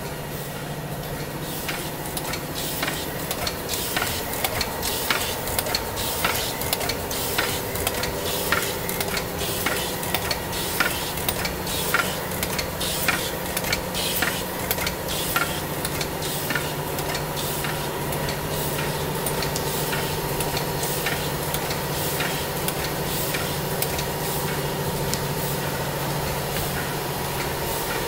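NF-80 plastic tube filling and sealing machine running: a steady hum and hiss with sharp mechanical clicks and clacks from its indexing turntable and stations, roughly one or two a second, thinning out in the second half.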